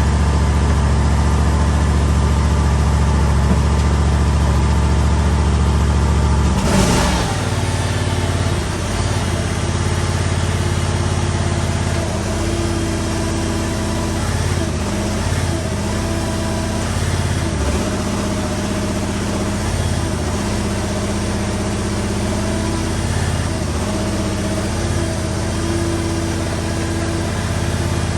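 Briggs & Stratton Vanguard engine in a mini skid steer running steadily. About a quarter of the way in there is a sudden noise and the engine note changes, then it runs on with brief dips in pitch every few seconds.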